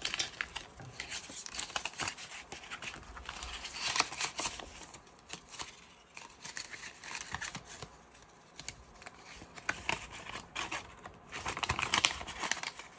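Paper bills and a hole-punched binder envelope rustling and crinkling as two-dollar bills are handled and slid into the envelope. It comes in short, irregular bursts with small clicks, loudest about four seconds in and again near the end.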